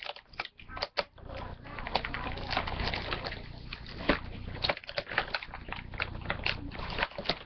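Cardboard and tape packaging crackling and rustling as a box is opened by hand, with many small irregular clicks.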